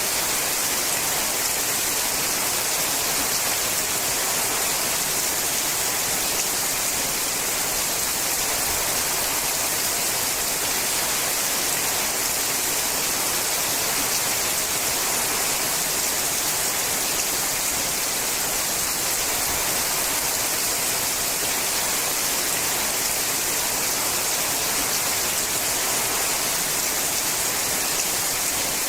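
Steady rain falling on a sheet-metal roof: an even, unbroken hiss with no let-up.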